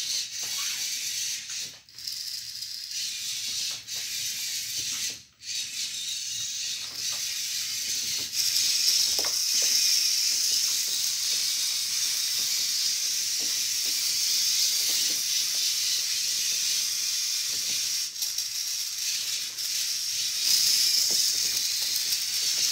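VEX IQ robot's small electric drive and collector motors whirring with plastic gearing as it drives and picks up a ball: a steady high whine with scattered light clicks, louder from about eight seconds in.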